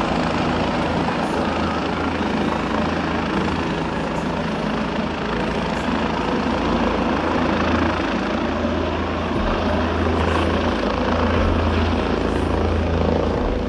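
Helicopter running close by: a steady, loud whir of rotor and turbine with a strong low throb underneath.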